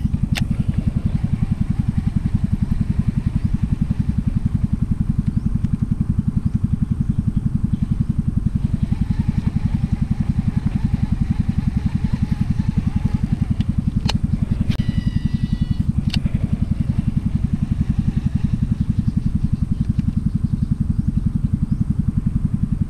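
A small engine running steadily at one constant speed, its firing a fast even pulse, with a few sharp clicks on top.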